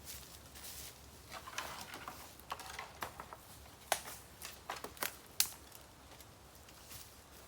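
Dry bamboo crackling and snapping: irregular sharp clicks and pops, with a short rustle about a second and a half in. The loudest pops come about four and five and a half seconds in.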